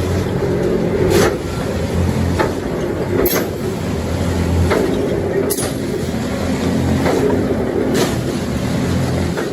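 Matisa B66 railway track tamping machine at work: a steady diesel hum with sharp knocks repeating roughly once a second as it cycles along the track.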